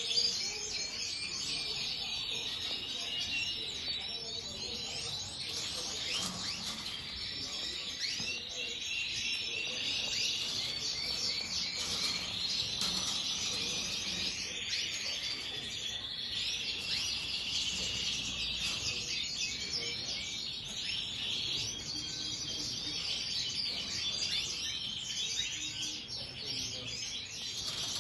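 Many small cage birds chirping and twittering at once: a dense, continuous chorus of overlapping high calls.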